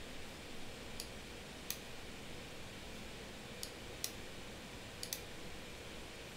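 Computer mouse clicking: about six short, sharp clicks, two of them in quick succession near the end, over a faint steady room hiss.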